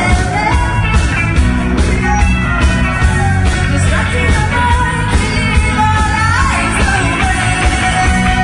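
Live rock band playing: a woman singing lead over electric guitars, bass and a drum kit.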